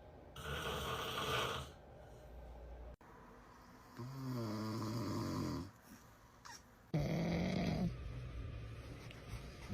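A man snoring: several long snores, some with a low droning pitch, separated by short pauses.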